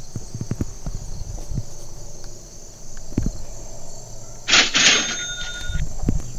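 Two sharp plastic clacks about four and a half seconds in, with a brief ringing after them, as a DeWalt 20V battery is handled on its DCB115 charger to test the outlet for power. Crickets chirp steadily throughout, with light handling knocks.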